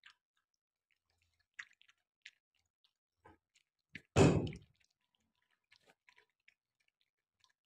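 Bully Kutta dog lapping and chewing yogurt from a bowl: faint, scattered wet clicks and smacks, with one much louder, short sound lasting about half a second just after four seconds in.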